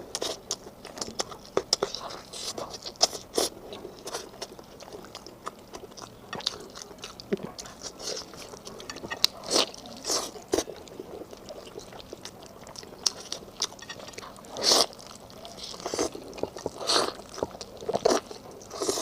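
Close-miked eating sounds: a person biting and chewing food, with irregular crunches and wet crackles, a few louder bites standing out.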